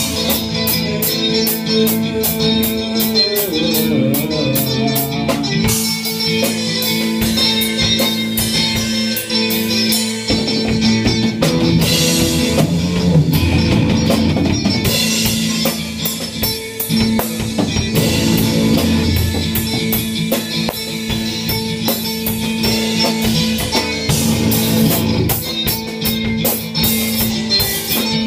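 A rock band playing live: electric guitar over a drum kit, with a steady run of cymbal or drum hits throughout.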